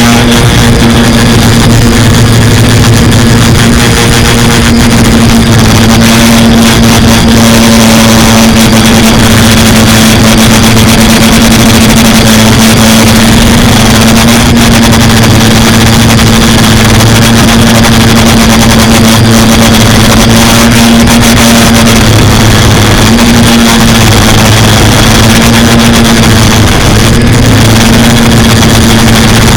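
Quadcopter's electric motors and propellers buzzing steadily in flight, the pitch dipping briefly a couple of times late on as the throttle eases and comes back.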